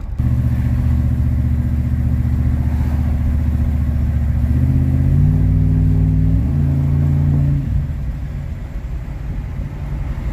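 Chevy 350 small-block V8 pulling the pickup under throttle, heard from inside the cab: a steady engine drone that steps up in pitch about halfway through, then falls away near the end as the throttle is let off to coast.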